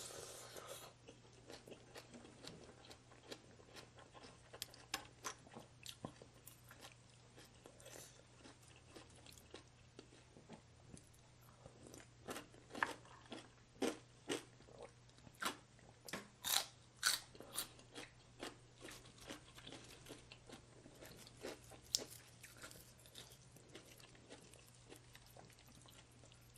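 Someone biting and chewing crunchy food: a run of short, sharp crunches that is thickest about halfway through, over a faint steady low hum.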